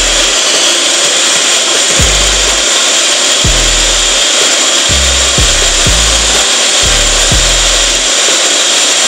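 Eggs being beaten with a wire whisk in a small bowl, a steady scratchy rasp, under background music with deep bass notes that slide downward every second or two.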